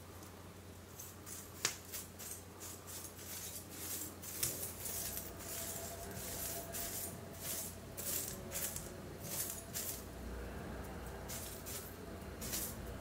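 Iron oxide granules rustling and scraping over the sculpture's tabletop as a hand-held tool is drawn through them, in irregular scratchy strokes with a couple of sharp clicks. A low steady hum runs underneath.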